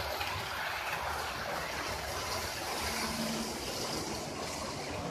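Model train running along layout track, a steady rolling noise of its wheels on the rails.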